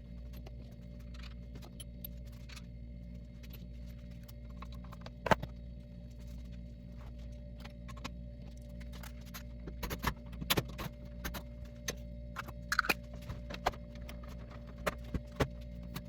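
Hand tools and the dryer's metal panels and screws clinking and knocking as the dryer is taken apart, over a steady low hum. The loudest knock comes about five seconds in, with a busier run of clicks and knocks later on.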